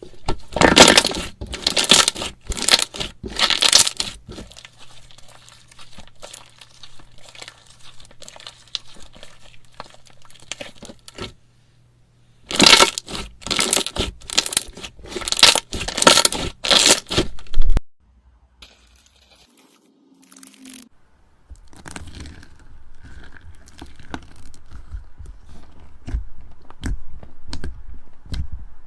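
Slime being pressed, stretched and squished by hand, giving repeated bursts of crackling, popping squelches with quieter crackle in between and a short near-silent gap past the middle.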